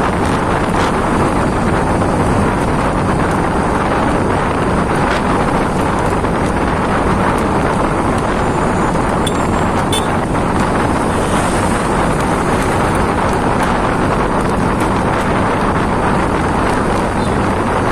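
Heavy rain pouring down, a loud, steady hiss with a few faint clicks around ten seconds in.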